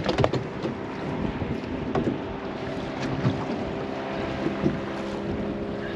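Small four-stroke kicker outboard motor running steadily.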